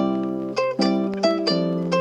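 Background music: plucked string chords with sharp attacks that ring and fade, a new chord about every half second.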